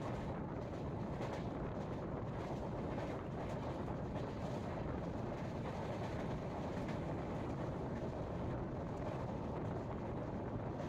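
Steady running noise of the 16352 Nagercoil–Mumbai express passenger train in motion, heard from on board.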